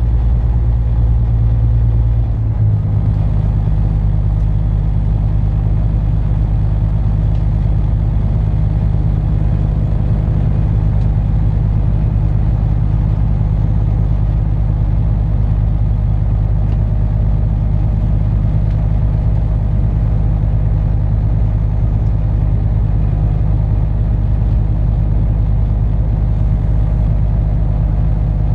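Inland cargo barge's diesel engine running steadily under way, a loud, even low drone; its pitch shifts slightly about two and a half seconds in and then holds.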